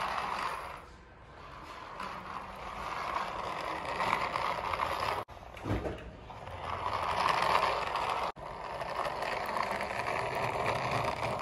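Toy remote-control car's small electric motor and plastic gearbox whirring as it drives over concrete. The whirring eases off about a second in and again near six seconds, then picks up again.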